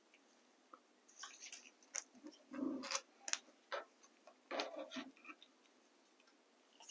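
Faint clicks and small knocks of a Bafang M600 mid-drive motor's metal housing being turned over in gloved hands while the small controller-cover bolts are run in with a hex key. The handling sounds come in two busier spells, about two to three seconds in and again around four and a half to five seconds.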